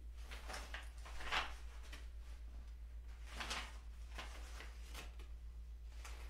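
Paper sheets rustling and being handled on a table in several short bouts, the loudest about a second and a half in, over a steady low electrical hum.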